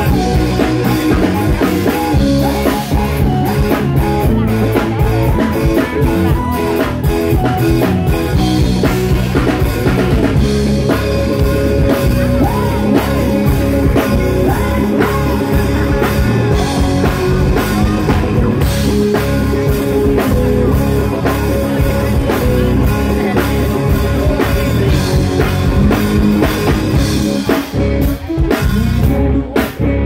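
Live band playing loud amplified music: drum kit and electric guitar with a singer's voice, dropping out briefly a couple of times near the end.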